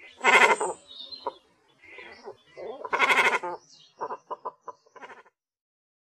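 Cormorant calling: two raspy calls of under a second each, fainter calls between them, then a quick run of short clipped notes, about four a second, that stops a little past five seconds in.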